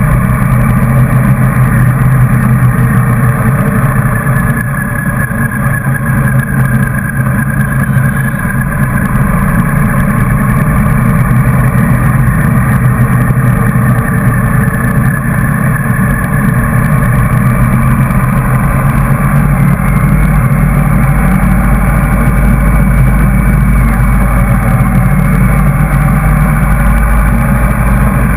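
Motorcycle engine running steadily at cruising speed, recorded on the moving bike, with a low wind rumble on the microphone that grows stronger in the second half.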